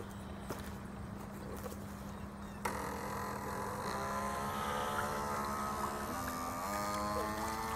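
Electric motor of a radio-controlled model speedboat whining. About two and a half seconds in it gets louder, and its pitch then climbs steadily as the boat speeds up.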